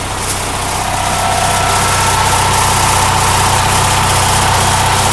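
The truck's six-cylinder engine idling steadily, joined about a second in by a steady mechanical whine from the winch winding in to lift a load on the hoist.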